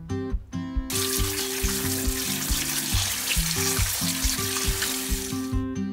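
Kitchen tap water running onto kelp noodles in a metal mesh strainer over a stainless steel sink as they are rinsed by hand. The water starts about a second in and stops just before the end, with acoustic guitar background music throughout.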